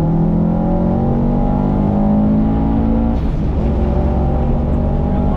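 Turbocharged Subaru flat-four engine accelerating, its pitch climbing steadily for about three seconds, then breaking off and running on more evenly.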